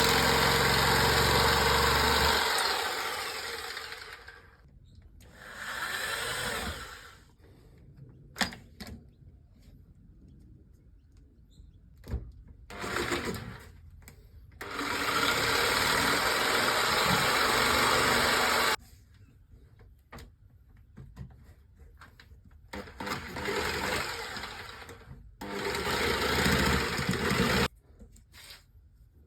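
Electric jigsaw cutting in stop-start runs of a few seconds each, about six in all, the longest at the start and in the middle, with short pauses between.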